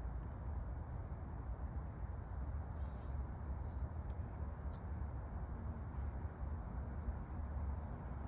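Small birds chirping faintly in short high trills, once at the start and again about five seconds in, with a few scattered single chirps, over a steady low rumble of background noise.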